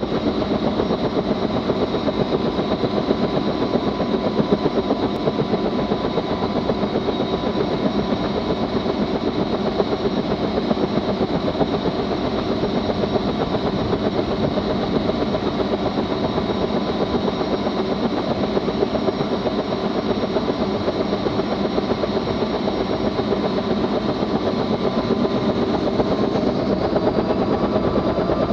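Helicopter running on the ground with its rotor turning, a steady engine sound with a fast, even pulsing. Its pitch begins to rise near the end.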